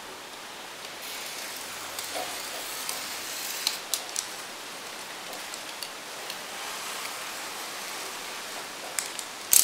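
Utility knife blade drawn along a steel straightedge on a panel: a steady faint scratching hiss with a few light clicks of blade and ruler.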